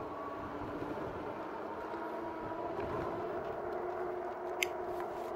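Electric bike cruising at steady speed: the RadMini's geared rear hub motor gives a steady whine over wind and tyre noise. A single light click comes near the end.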